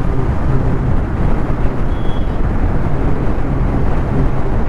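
Motorcycle riding along a road: steady wind rush on the action camera's microphone over the bike's running engine and road noise.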